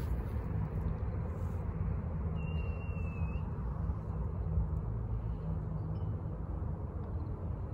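Steady low outdoor background rumble and hiss, with one faint thin high-pitched tone lasting about a second, roughly two and a half seconds in.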